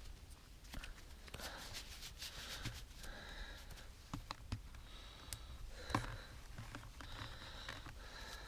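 Faint, muffled handling noise from a GoPro on a hand-held pole: rustles and small clicks, with short breathy puffs about every second. One sharper knock comes about six seconds in.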